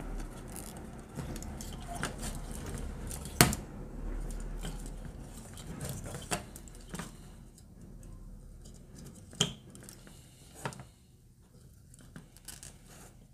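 Hands handling plastic computer cooling fans and nylon cable ties: light rustling with scattered sharp plastic clicks, the loudest about three seconds in.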